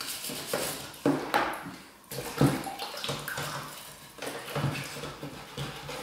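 Clear plastic tube bird feeder being scrubbed in a plastic washing-up bowl of water with a long cleaning brush and a scouring pad. Water sloshes and splashes in irregular scrubbing strokes.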